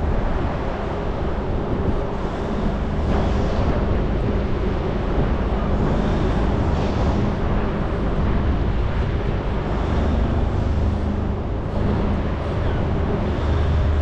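Steady outdoor background noise: a continuous low rumble with hiss, like road traffic, with wind on the microphone.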